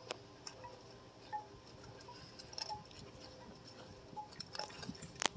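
Raccoon eating dry cat food kibble: faint, scattered crunches and clicks, with one sharp click near the end. Faint short ringing pings come and go.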